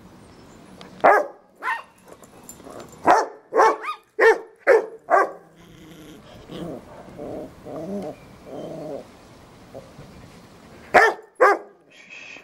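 Dogs at rough play: a Yorkshire terrier barking in sharp yaps, about seven in the first five seconds and two more near the end, with a stretch of growling in between.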